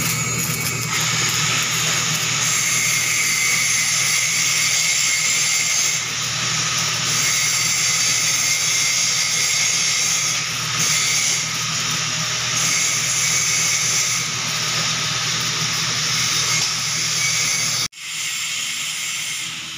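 Shielded metal arc (stick) welding on a pipe joint: the electrode's arc hissing and crackling steadily over a low hum. It cuts off abruptly near the end.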